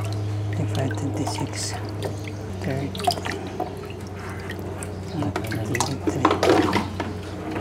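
Water dripping and splashing as hands scoop catfish fry from a plastic basin and let them drop into a plastic bucket of water, over a steady low hum. The splashing is busiest about six seconds in.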